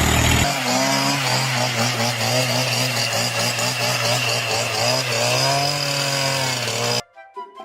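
A small motor, such as a power tool's, running steadily at a fairly constant pitch with a wavering upper whine. It cuts off suddenly about seven seconds in, and music follows.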